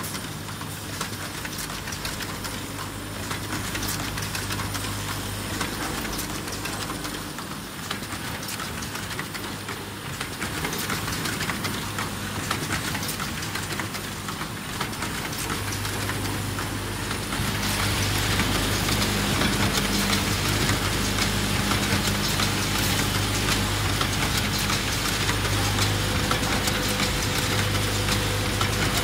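Automatic garment-hanger clip assembly machine running: a steady low hum under quick, irregular clicking and clacking of its moving parts and pneumatic actuators, with a hiss. It grows louder and brighter well over halfway through.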